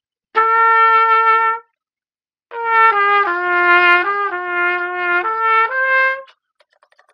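Plastic trumpet (blue pTrumpet) played with a 5C mouthpiece: one held note, then after a short pause a phrase of several notes that steps down and climbs back up, ending on a higher note.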